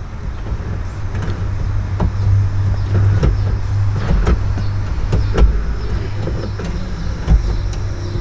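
Blaupunkt in-dash 6-disc CD changer mechanism running with a steady motor hum and irregular clicks and knocks. Right after a repair of its "CD Mech Error", the owner takes it for the changer checking its platters one at a time or bringing its gears back into line.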